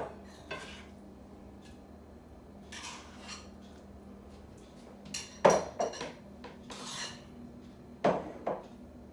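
Dishes and cutlery clinking and clattering: a handful of separate knocks, loudest about five and a half and eight seconds in, with a couple of softer scrapes between, over a faint steady low hum.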